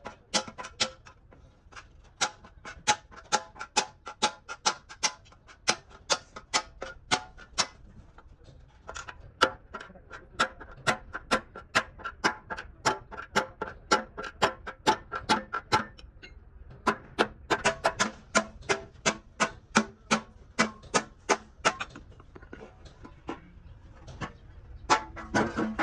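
Hammer blows on a sheet-metal truck fuel tank, about three strikes a second, each ringing with a metallic tone, as the bent tank is beaten back into shape. The hammering pauses briefly about 8 and 16 seconds in.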